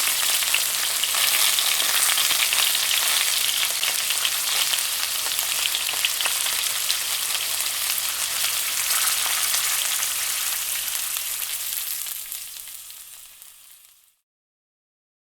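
Food frying in hot oil: a dense sizzle with many small crackling pops, fading out about two seconds before the end.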